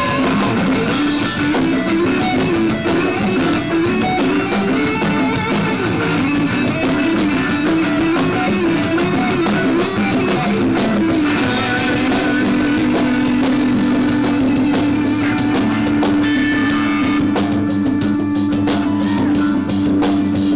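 Live rock band jam: electric guitars over a drum kit. The lead guitar plays bending, wavering notes, then about halfway through holds one long sustained note.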